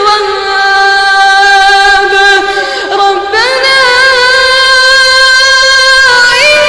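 A single high voice singing unaccompanied in long held, wavering notes, stepping up in pitch about three seconds in and again near the end.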